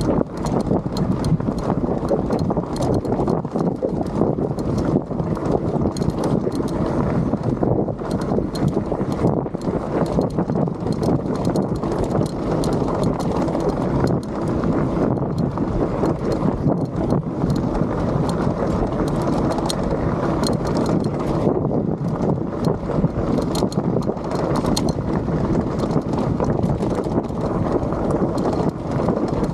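A bike with suspension rolling down a rocky trail: tyres crunching over loose rock and the frame and parts rattling, with many small knocks and clicks throughout.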